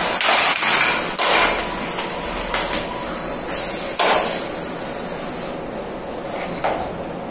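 1 kg sumo robot in a test bout, with a loud hiss from its drive in short bursts and sharp knocks and clatter as it shoves a block-shaped dummy opponent. It is then handled and set back down on the ring with a smaller knock near the end.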